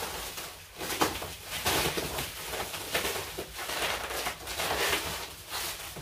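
Irregular rustling and knocking handling noises, a few each second, from an old wooden sideboard being worked open.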